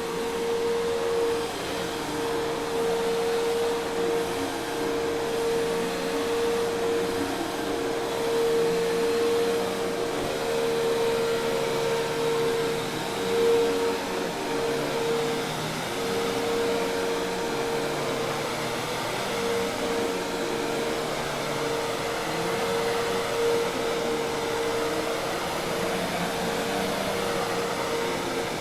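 Hoover Task Vac commercial vacuum cleaner running steadily: a continuous rush of air with one steady tone from the motor.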